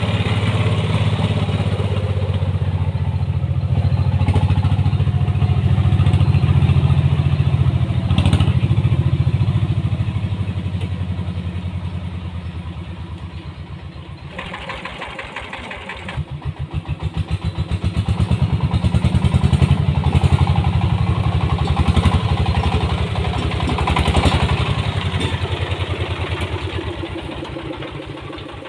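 24 hp diesel engine of a homemade dump truck chugging under a heavy load of soil as the truck drives along, its firing pulses distinct and evenly spaced. The sound drops away about halfway through, then grows loud again.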